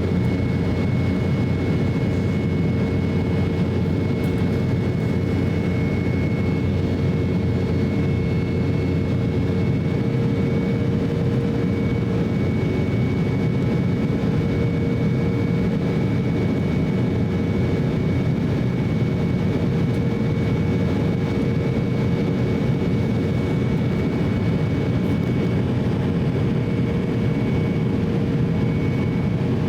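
Steady cabin noise of an Embraer E190 airliner in flight: an even rumble of its turbofan engines and airflow, with faint steady whine tones above it.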